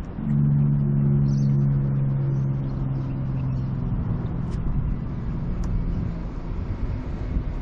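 A motor engine running with a steady low hum that starts just after the beginning, holds for about four seconds, then fades into a rumble.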